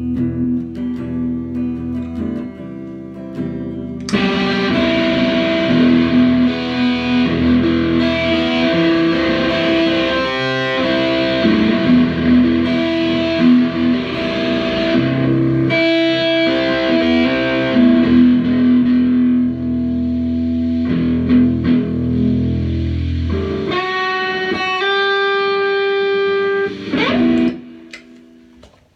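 Guitar playing solo: lighter for the first few seconds, then suddenly louder and denser from about four seconds in. Near the end it turns to ringing held notes, then stops.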